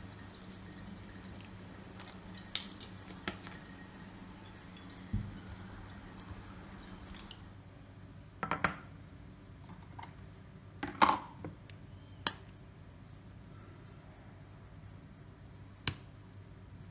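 Kitchen food-prep handling sounds over a steady low hum: scattered light clicks, taps and clinks of bowls and bottles, with a cluster about eight and a half seconds in and the loudest clink about eleven seconds in.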